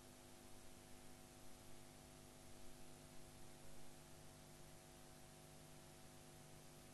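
Near silence: a steady hiss with a faint, even electrical hum under it.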